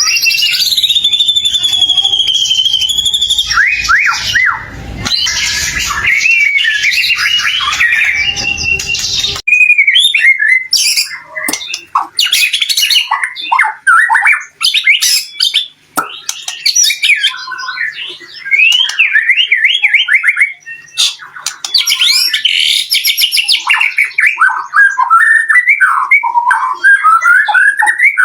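White-rumped shama singing in full, continuous song: rapid, varied phrases of clear whistles, sweeping notes and harsher squawks. About nine seconds in the recording changes abruptly and the background hiss drops away, leaving cleaner song.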